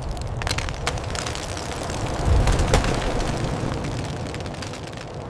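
Dramatic destruction sound effects: a deep continuous rumble with many sharp cracks and snaps of breaking debris, swelling loudest about two and a half seconds in.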